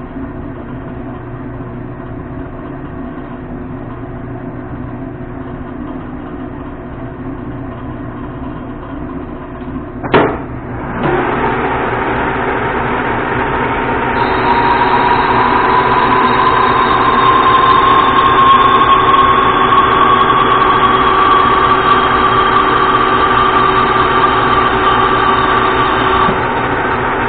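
Monarch engine lathe: a steady machine hum with the spindle stopped, a sharp clunk about ten seconds in as the spindle is engaged, then the geared headstock running louder with a whine that climbs slightly in pitch while a carbide tool takes a turning pass along the Nylatron bar. The whine eases off near the end.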